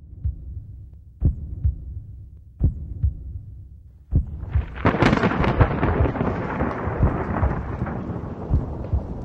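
Low rumbling booms about every second and a half, then a loud thunder-like crash about five seconds in that rolls on with crackle: a thunder sound effect.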